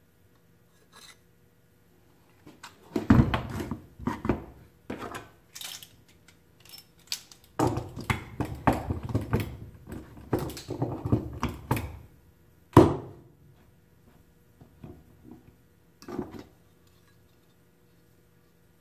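Tools, a metal dowel jig and pine boards being handled on a wooden workbench: irregular knocks, clinks and rattles, with one sharp knock about two-thirds of the way through.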